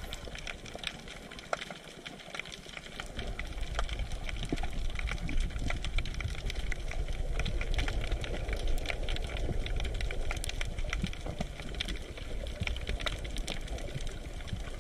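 Underwater ambience picked up by a diving camera: a dense, continuous crackle of small clicks over a low rumble, the rumble growing louder about three seconds in.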